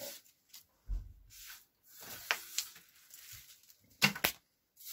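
A hand brushing scraps of foamed polystyrene off a scroll saw table in short rustling sweeps. There is a low bump about a second in, and two sharp knocks a little after four seconds, the loudest sounds.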